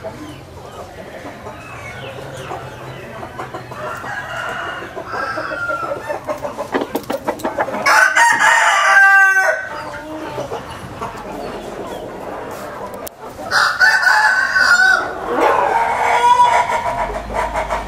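Roosters crowing over steady chicken clucking, with one loud crow about halfway through and another a few seconds later.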